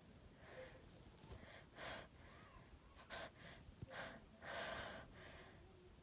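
A woman's faint, short, breathy gasps and sniffs, about eight of them at uneven intervals: the hitching intake of breath that comes before an induced sneeze.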